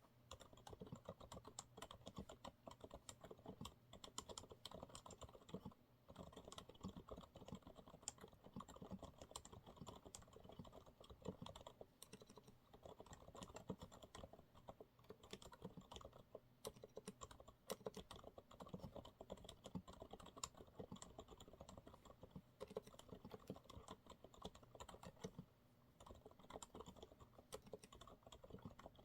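Continuous quiet typing on a Monsgeek MG108W keyboard with TTC silent brown switches: a fast, irregular patter of soft keystrokes, with brief pauses about six seconds in and again near the end.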